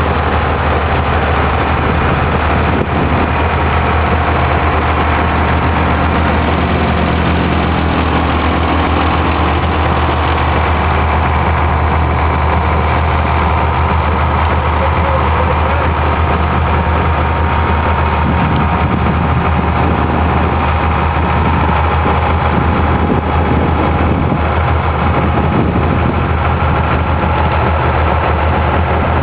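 Vintage John Deere tractor engine running steadily with a deep, even drone as the tractor pulls a rotary power harrow across ploughed ground.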